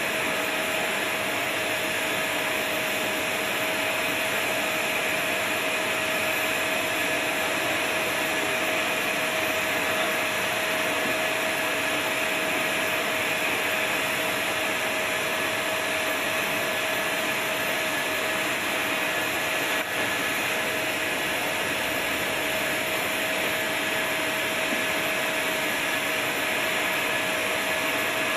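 A turbine running steadily: an even, loud rush of air with a constant whine.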